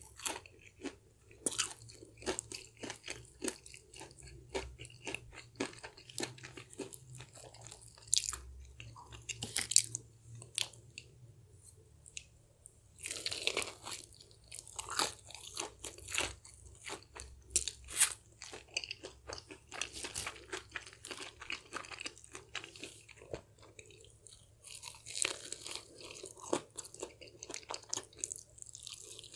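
Crispy fried chicken being bitten and chewed close to the microphone: many short, sharp crunches of the fried coating, in thicker bursts with each new bite, with softer chewing between them.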